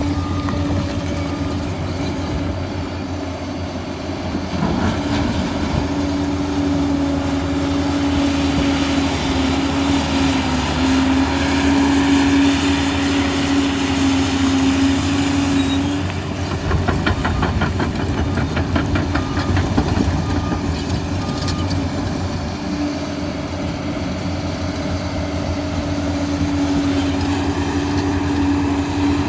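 Liebherr PR 746 crawler dozer's diesel engine running steadily with a whine that drops out for several seconds past the middle, while a rapid clatter is heard over that same stretch.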